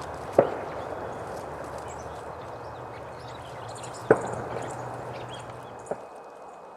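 Three sharp knocks, one shortly after the start, one about four seconds in and a softer one near six seconds, over a steady rushing background with a low hum that drops away near six seconds; faint high ticks throughout.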